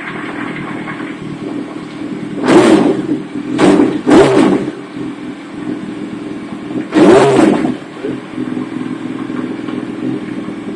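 Yamaha YZF-R1 motorcycle's inline-four engine running after it has finally started, its stuck starter freed by rocking the bike in gear. It idles steadily, with four blips of the throttle, two close together a few seconds in and one more about seven seconds in.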